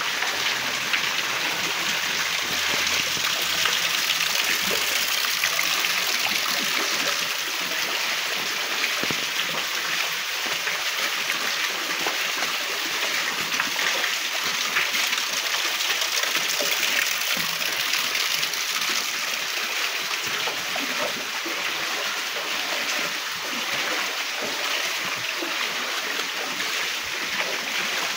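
Steady rush of floodwater running and trickling through a flooded lane, with light splashing.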